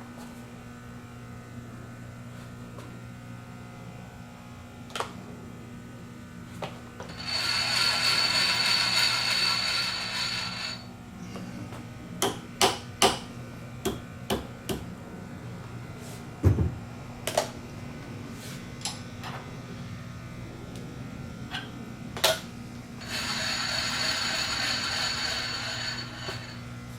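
Rattling, ratchet-like mechanism on a Bridgeport milling machine being worked during tool setup: two runs of about three and a half seconds each, with a thin high whine. Between the runs come a series of sharp clicks and knocks from tooling being handled, including one heavier thud, all over a steady shop hum.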